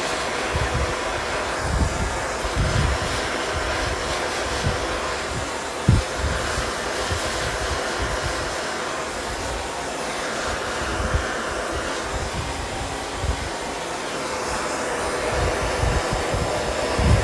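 Hose-fed gas torch burning with a steady roaring hiss as its flame heats the car's bare steel body panel for lead tinning. Irregular low thumps come through it, the sharpest about six seconds in.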